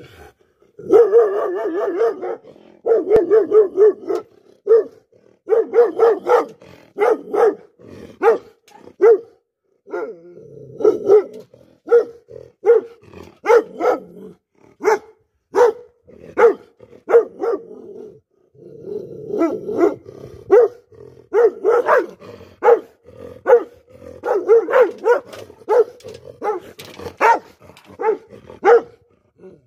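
Large shepherd-type yard dog barking over and over, about a bark a second, with a few stretches of rapid, run-together barking: alarm barking at a person approaching.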